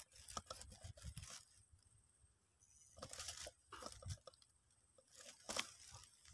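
Near silence with faint, scattered crackles and rustles in short clusters.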